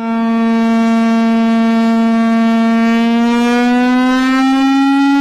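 Siren warning tone: one loud, sustained, buzzy tone that holds steady and then slowly rises in pitch from about halfway through, sounding as the alert signal for a tornado warning.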